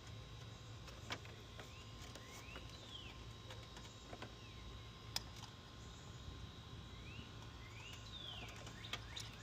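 Faint bird chirps in two short bouts, about two seconds in and again near eight seconds, each a few quick rising notes ending in a falling one, over a steady low hum. A couple of sharp clicks stand out, one about a second in and one about five seconds in.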